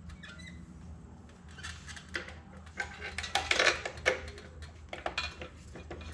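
Metal tools and parts clinking and rattling against each other, a quick run of clanks that is loudest about halfway through, over a steady low hum.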